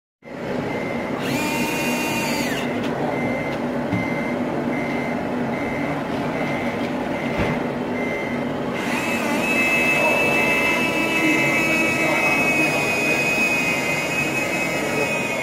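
RC tipper truck with a reversing beeper going at about two beeps a second over a running engine sound. From about nine seconds in, a steady high whine replaces the beeps.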